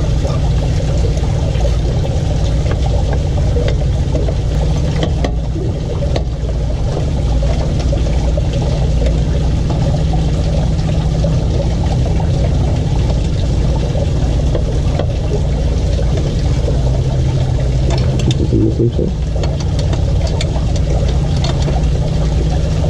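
Steady low mechanical hum of a motor running in the background, with a few faint clicks from screws being worked loose on the car's underside.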